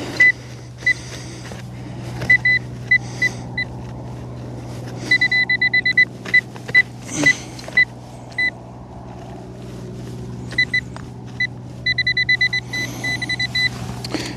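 Metal detecting pinpointer beeping at one high pitch as it is probed in a dig hole: single beeps, then fast runs of beeps about five and twelve seconds in as it closes on a buried target. A steady low drone runs underneath.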